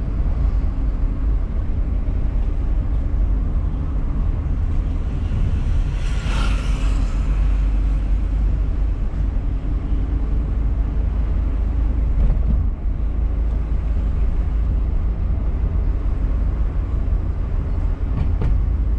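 Steady low rumble of a car's engine and tyres on the road, heard from inside the cabin while driving. A brief hiss swells and fades about six seconds in.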